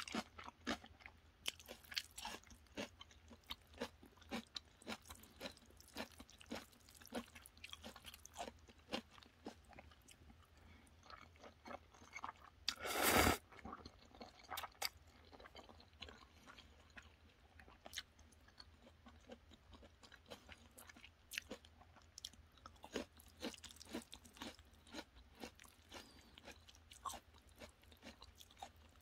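Jjajangmyeon noodles being mixed through thick black bean sauce with wooden chopsticks, making a steady run of small sticky, wet clicks and squelches. There is one louder, longer sound about 13 seconds in.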